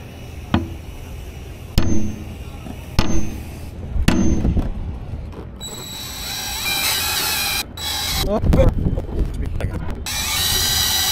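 Four sharp hammer taps about a second apart, then a cordless drill running as it bores a hole into the underside of a radar dome mount: a steady whine that stops for a moment and then starts again near the end.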